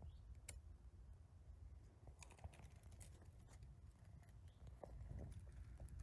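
Faint, scattered crackles and ticks of dry spruce needles and twigs being disturbed underfoot and by the moving camera, mostly from about two seconds in, over a low rumble.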